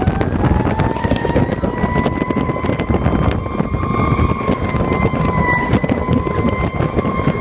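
Fire engine siren rising in pitch at the start, then holding one steady wail, over the loud rumble of the engine and wind noise on the microphone.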